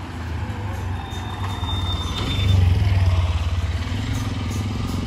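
Street traffic noise, with a motor vehicle's engine passing close by, loudest about two and a half to three and a half seconds in.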